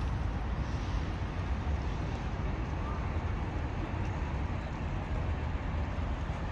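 Steady city street background: a low traffic rumble with indistinct voices.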